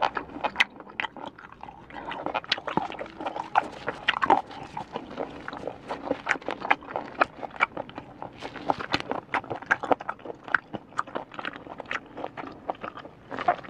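Close-miked chewing of smoked snail meat: a dense run of quick wet clicks and smacks from the mouth. The meat is chewy and crunchy.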